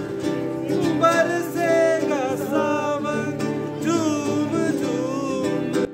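Street busking: an acoustic guitar strummed in steady chords while a man sings a melody over it.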